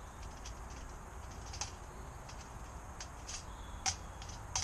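Small wood-burning camping stove crackling, with a handful of sharp, irregular pops, the loudest about four seconds in, over a steady low background rumble.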